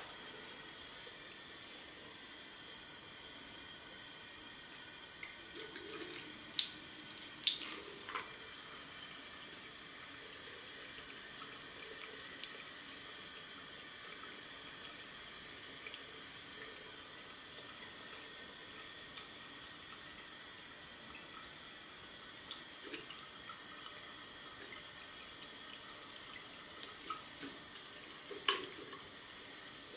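Thin stream of water running from a mixer tap into a ceramic washbasin: a steady hiss. A few brief, louder clicks and splashes come about six to eight seconds in and again near the end, as the kitten paws at the stream.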